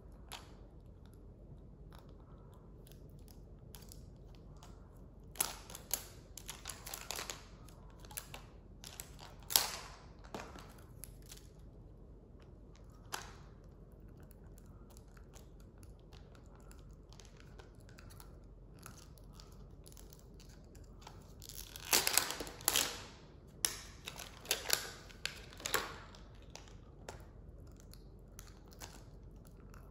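Plastic wrapping on a Mini Brands toy capsule being torn and crinkled with the teeth. Short crackling bursts come in a cluster several seconds in, then singly, then a louder run a little past the middle.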